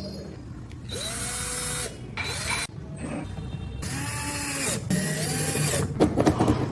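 A power carving tool cutting wood in four short bursts, its motor whine rising as each burst begins.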